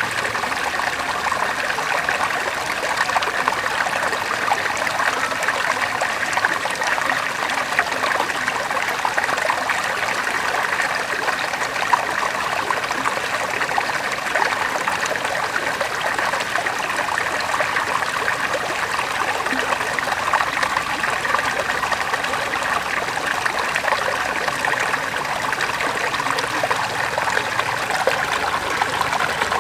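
River water flowing and splashing over stones, a steady babbling rush with many small splashes.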